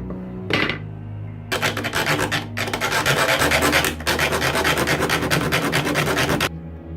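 A file or rasp worked quickly back and forth on the wooden saw handle, shaping it to fit the blade. One short stroke comes about half a second in. Rapid continuous strokes follow from about a second and a half, with a brief pause, and stop abruptly near the end.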